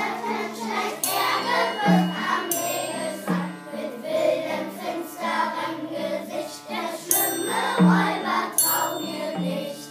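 Group of children singing over a steady instrumental accompaniment of held low notes. A triangle is struck twice near the start and twice near the end.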